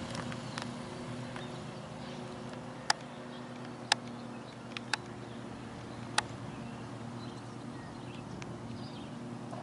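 Model airplane motor humming steadily at a distance, with four sharp clicks about a second apart in the middle.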